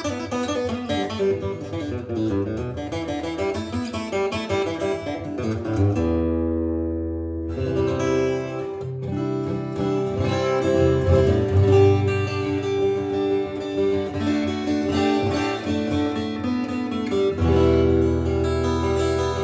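Epiphone Masterbilt DR400 acoustic guitar played solo as a song's instrumental intro. About six seconds in, a chord is left to ring out and fade, then the playing picks up again.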